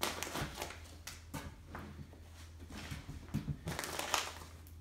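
Pry bar working wall studs and their nails loose from a wood frame: irregular scraping and cracking of wood, heaviest about three and a half to four seconds in.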